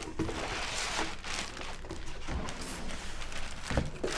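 Clear plastic packaging bag crinkling and rustling as an electronic console is lifted out of its box and unwrapped, with two dull knocks in the second half.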